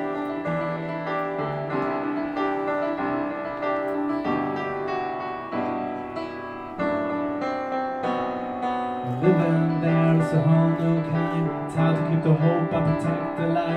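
Piano playing an instrumental passage of held chords that change every second or two, growing louder and fuller about nine seconds in.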